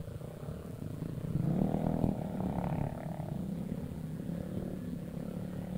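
Automatic scooter engine, bored up to 63 spec and still being run in, running under way. It gets louder about a second and a half in as the throttle opens, then settles to a steady drone.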